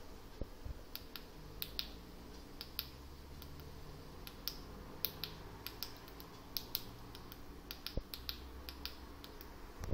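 Small, sharp clicks at irregular intervals, a dozen or more, from fingers pressing and handling parts on a solderless breadboard, over a faint low steady hum.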